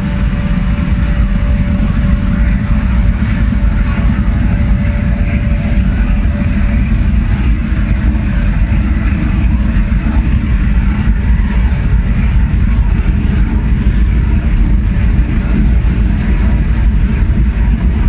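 Gas burner of a regenerative aluminium melting furnace firing into the furnace chamber: a loud, steady, low rumble of the flame.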